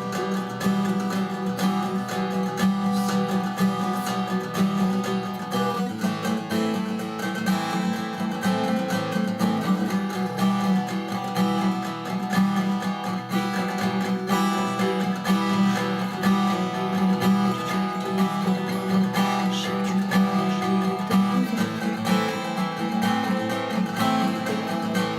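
Acoustic guitar strummed in a steady rhythm, chords ringing throughout with no singing.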